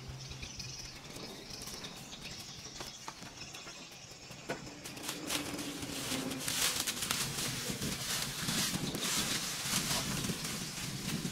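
Dry leaves and brush rustling and crackling as cut vegetation is handled, with scattered sharp snaps. The rustling grows denser and louder about halfway through.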